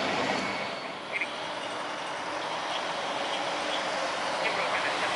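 Airbus A320-200's jet engines at taxi power, a steady rushing hiss that eases a little about a second in.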